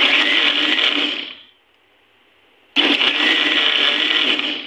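Electric mixer grinder blending a thick mango pulp and milk mixture, run in two short pulses: on for about a second and a half, off, then on again for about two seconds before cutting off.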